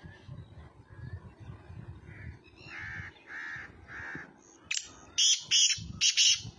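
Black francolin calling: four short clear notes, then near the end a loud, harsh call of three or four grating notes.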